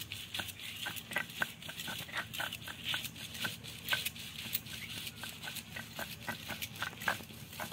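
Stone grinder (sil-batta) being rocked back and forth over soaked chana dal on a flat grinding stone: a gritty scrape with short clicks about three or four times a second as the stone rolls and knocks.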